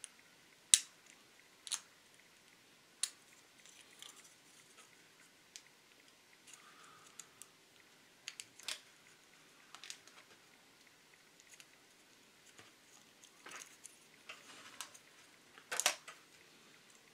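Knife blade scraping built-up glue off the edges of a plastic model car part: short, scattered scratches and clicks with pauses between them, the loudest near the end.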